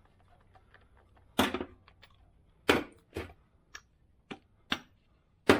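Sharp knocks and clanks of hand tools on the truck's steering parts, about seven of them at irregular intervals, starting a little over a second in.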